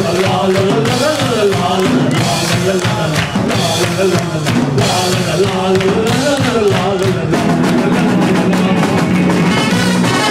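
Live band playing a song, loud and steady, with a melody line that rises and falls over the backing.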